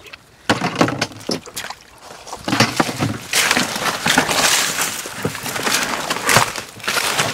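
Hands rummaging through wet mud and shallow water among grass and twigs: irregular squelching and splashing, louder and busier from about two and a half seconds in.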